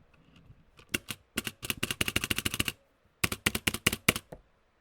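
Mechanical keyboard with unlubed Outemu brown tactile switches (Velocifire TKL78) typed on in two quick flurries of key clicks, recorded close up. A high metallic ting rings under the keystrokes: spring ping from the switches.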